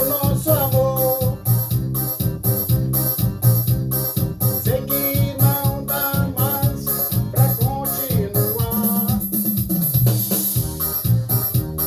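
Forró song playing: an electronic keyboard lead with bending notes over a steady, even drum beat and bass, in an instrumental stretch with no singing.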